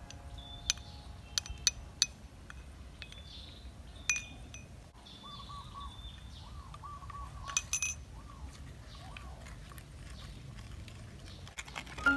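A spoon clinking several times against small bowls and a clay mortar as sauces are spooned in: a few sharp clinks at the start, one about four seconds in and a quick cluster near eight seconds. Birds chirp and warble in the background.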